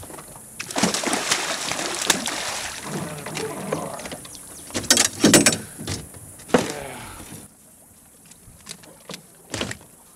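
An arrowed gar thrashing on the bowfishing line beside the boat, splashing at the surface, with sharp knocks against the boat about five and six and a half seconds in. The sound dies down near the end.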